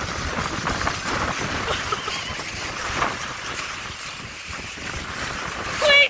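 Strong wind gusting over the microphone in a storm, with faint voices under it and a loud shout near the end.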